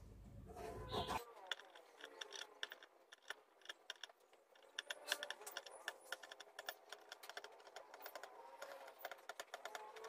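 Pen and steel ruler clicking and scratching faintly and irregularly on a metal sheet while lines are marked out.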